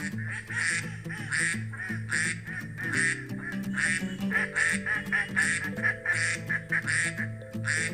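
Duck quacking, a run of short quacks one or two a second, over background music.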